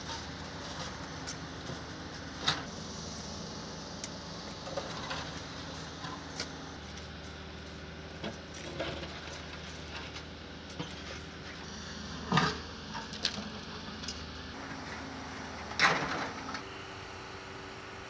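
Shovel blade scraping and striking into rocky soil in a trench, a few sharp strokes, a couple of them drawn out for about half a second, over a steady low mechanical hum.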